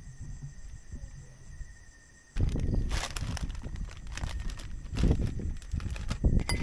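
Night insects calling in steady high tones over a faint low rumble. About two and a half seconds in, the sound turns abruptly louder to rustling and knocks from a person moving about and handling things at a low table.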